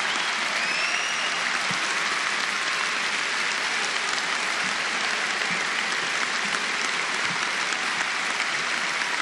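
Large arena crowd giving a standing ovation: steady, sustained applause.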